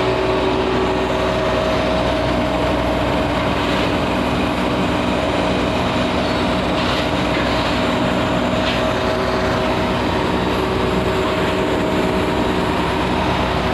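LMW Smart Turn CNC turning lathe running steadily: a constant machine hum with several steady tones over a continuous whir.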